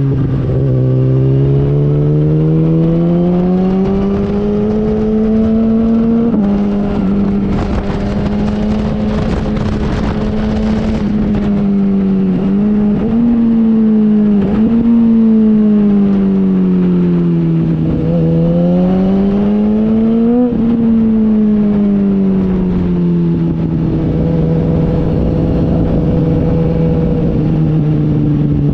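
Motorcycle engine running hard on a race track. Its pitch climbs under acceleration and drops suddenly at gear changes, about six seconds in and again about twenty seconds in, with a slower fall as it slows around the middle. A rush of wind noise joins for a few seconds early on.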